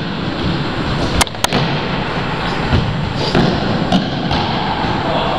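Indoor football in a sports hall: thuds of the ball being kicked and striking the floor over steady noise, with two sharp knocks close together about a second in.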